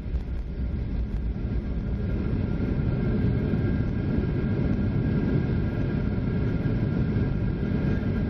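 Cabin noise of a Boeing 737-800 on its landing rollout: a loud, steady, low roar from the engines and the rolling airframe, swelling a little about two seconds in.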